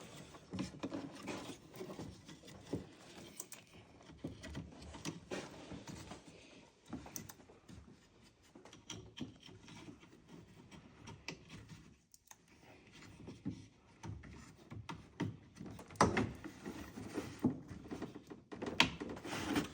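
Faint, scattered clicks, light knocks and rubbing from wiring and connectors being handled and plugged back together, busier near the end.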